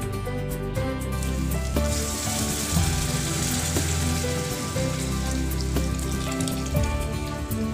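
Water poured into a pan of hot fried onion-tomato masala, hissing and sizzling from about two seconds in for several seconds, over background music.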